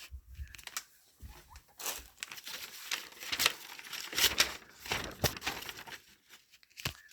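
Irregular rustling and crinkling at a guinea pig cage, loudest through the middle few seconds, with a sharp click near the end.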